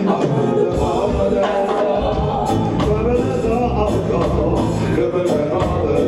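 Live reggae band playing, with singers' voices over drums, electric guitar and keyboard.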